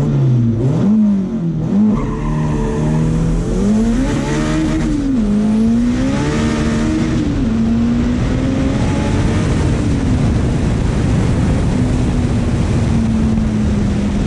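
Turbocharged Mazda RX-7 engine accelerating hard through the gears: its note climbs, drops back at upshifts about five and seven seconds in, then holds fairly steady at speed.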